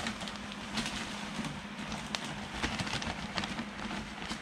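Loose coconut-fibre substrate being poured and spread in a glass tank: many light, scattered crackles and rustles, over a steady low hum.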